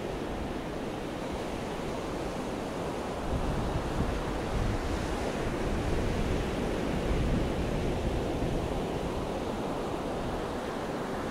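Atlantic Ocean surf breaking on a sandy beach: a steady wash of water that swells louder and deeper from about three seconds in as a wave crashes, then eases off again.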